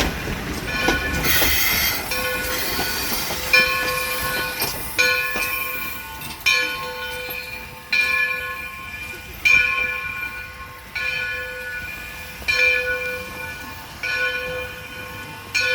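Steam locomotive bell ringing steadily, one clang about every second and a half, as the engine moves back toward its train. A burst of hiss comes about a second in.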